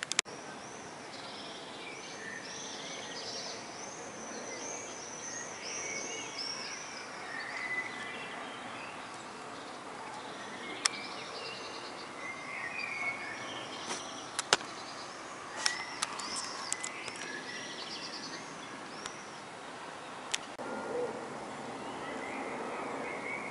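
Songbirds chirping, with many quick rising-and-falling high chirps, over a steady background of distant jet airliner noise that grows louder near the end. A few sharp clicks are heard.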